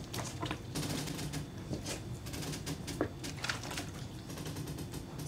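Rubber work boots sloshing and scuffing in a plastic bucket of teak cleaner, with irregular splashes, knocks and scrapes as the scrubbing pole and pad are handled. The boots and gear are being washed in the step two neutraliser to stop the step one cleaner staining the deck.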